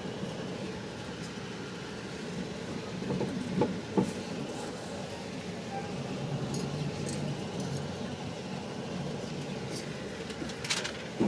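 Steady low rumble of a train yard or station, with two sharp knocks about four seconds in and a brief clatter near the end.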